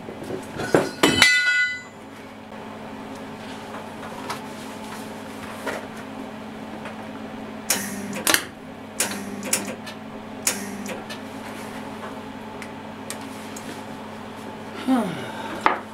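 Steel clanking and knocking as metal parts are handled and clamped on a steel workbench, one strike about a second in ringing briefly, then a few more knocks around eight to eleven seconds in, over a steady low workshop hum.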